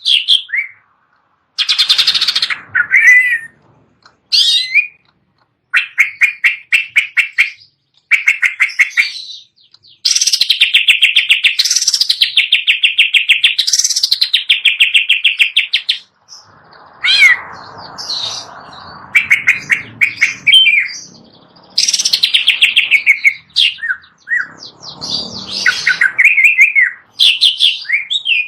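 Green leafbird (cucak ijo) singing: long, fast runs of rapidly repeated high notes that sweep up and down, broken by short pauses and a few harsher phrases.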